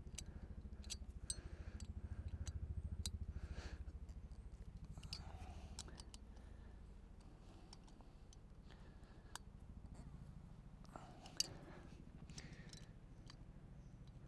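Irregular light metallic clicks from a wrench tightening the three top bolts on a Simple Pump deep-well hand pump's head, with one sharper click late on, over a low steady rumble.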